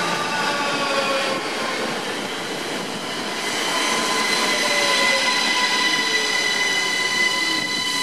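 ÖBB class 4744 Cityjet electric multiple unit (Siemens Desiro ML) pulling in along the platform and slowing, with a rumble of wheels on rail. Its electric traction drive gives a whine of several stacked tones that falls in pitch for the first couple of seconds and then holds steady.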